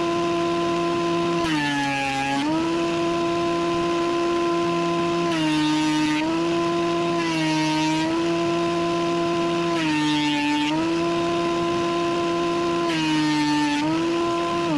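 Bauer 12-1/2 in. portable thickness planer with its 15-amp motor running with a steady high whine. About six times the pitch sags and a rushing hiss comes in as the cutterhead bites into a board under load, then it picks back up.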